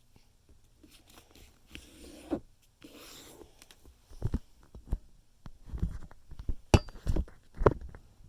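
Square of origami paper being folded in half and creased by hand: soft rustling of the paper, then a series of thumps and taps as the fold is pressed flat, the sharpest a little before the end.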